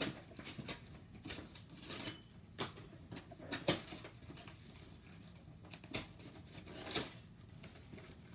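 Packaging of a Pokémon card collection box being torn and opened by hand: irregular crinkling, tearing and scraping of wrap and cardboard, with a few sharper crackles.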